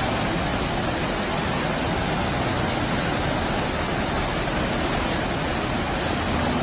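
Muddy floodwater of a swollen river rushing through the arches of a stone bridge: a steady, unbroken rush of water.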